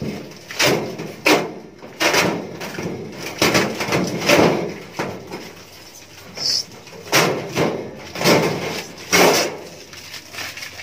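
Hands working over the thin stainless-steel top of a gas pizza oven: about a dozen short, irregular scraping and rustling strokes, with a brief lull midway.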